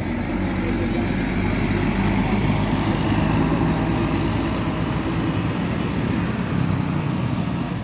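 Engine of a large intercity coach running as the bus moves past, a steady low drone over the noise of terminal traffic.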